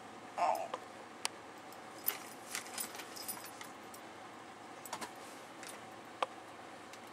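Small metal collar tags jingling and clinking in scattered bursts as a cat moves about on carpet. A brief high-pitched squeak about half a second in is the loudest sound.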